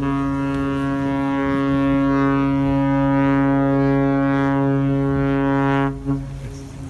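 Ship's horn sounding one long, steady blast of about six seconds, cutting off sharply, with a brief short toot just after.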